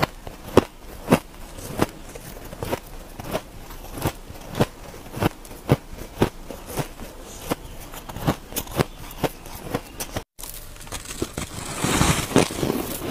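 Crunchy shaved ice being chewed: sharp crunches about twice a second. Near the end, after a brief gap, comes a louder run of crunching as a bite is taken from a frozen slab of purple shaved ice.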